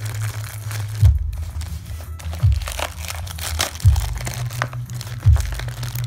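Plastic packaging crinkling and crackling as it is handled, over background music with a heavy bass beat about every second and a half.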